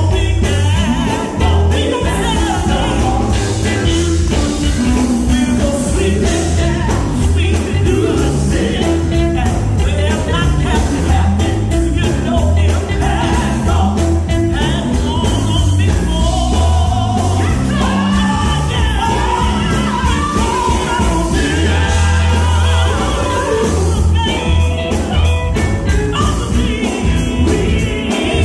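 Live gospel music: a group of women singing into microphones over an amplified band with electric guitar and bass guitar.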